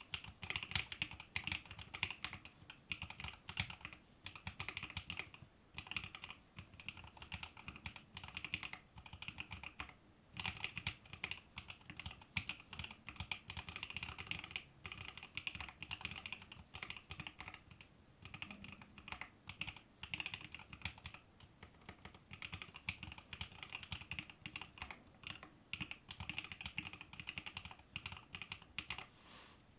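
Continuous typing on a Fuji65 mechanical keyboard with lubed Alpaca v2 linear switches, a carbon fiber plate and Geekark BOW keycaps: a steady patter of keystrokes with a few brief pauses.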